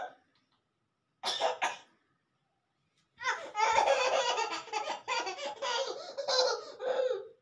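A person's voice laughing and coughing: a short burst about a second in, then a longer stretch of about four seconds near the end.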